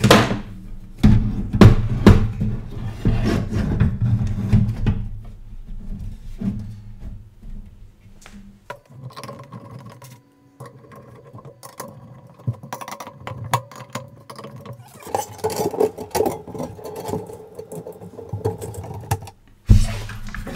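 A computer power supply being handled and fitted into a metal PC case: knocks, scrapes and clicks, loudest in the first few seconds. About nine seconds in, steady tones join under further clicking.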